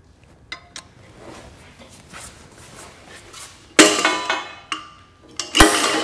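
Two loud, sharp metallic clanks about two seconds apart, each ringing on briefly, with a few faint clicks before them from steel knife-testing gear being handled.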